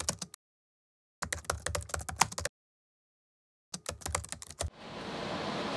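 Computer keyboard typing, in three quick bursts of rapid key clicks with dead silence between them. Near the end, a steady hiss of room noise fades in.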